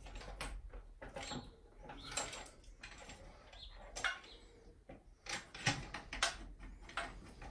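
Corrugated metal flexible gas pipe being bent into shape by hand at a meter: light metallic clicks and scrapes, with a few sharper knocks in the second half.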